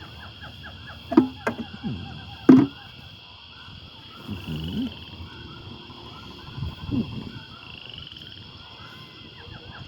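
A background chorus of many small, rapidly repeated calls, like frogs croaking, over a steady high hiss. Sharp knocks come about a second in and again about two and a half seconds in.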